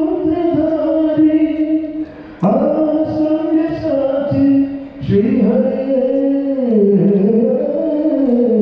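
A man singing into a microphone in long held notes that slide between pitches, breaking briefly for breath about two seconds in and again about five seconds in.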